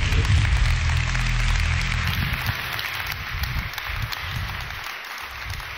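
Audience applauding, the clapping thinning out towards the end. A low musical drone sounds under it and stops about two seconds in.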